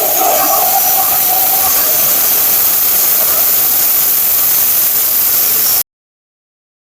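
Steady, loud hissing rush of a spark-throwing metal-cutting or grinding tool working on a steel car frame; it cuts off abruptly about six seconds in.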